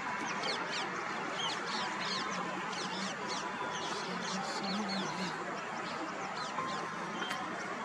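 Many small birds chirping at once: a dense, overlapping run of short, high chirps over a steady background hiss.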